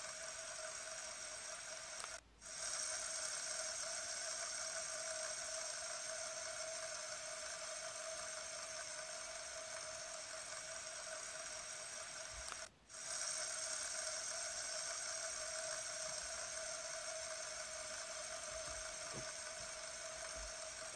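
Fidget spinner spinning on its ball bearing, a steady even whir with a clear hum. It drops out for a moment twice, about ten seconds apart.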